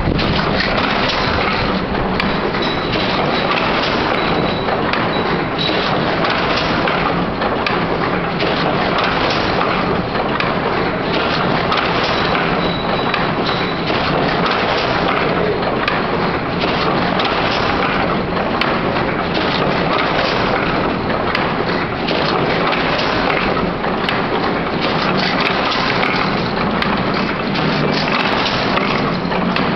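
Double-knot fishing net making machine running, a steady dense clatter of many overlapping knocks from its hundreds of polymer shuttles and knotting mechanism working together.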